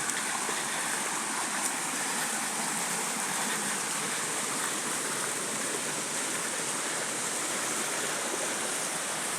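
Steady rush of flowing water, an even hiss-like noise that holds a constant level without breaks.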